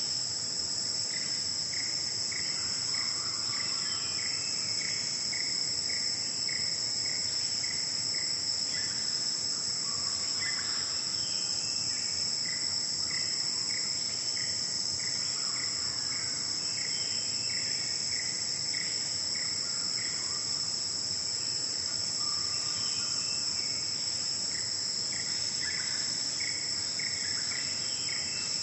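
A steady, high-pitched chorus of forest insects. Over it, runs of short, evenly repeated notes, about two or three a second, come and go, with a few brief scattered calls.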